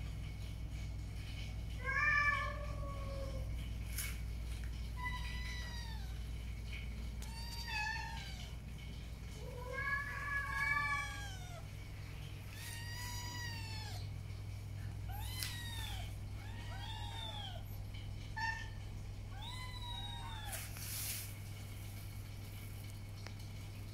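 Young tabby kittens meowing again and again, thin high calls that each rise and fall in pitch, about ten in all, the loudest about two seconds in and near the middle. A steady low hum runs underneath.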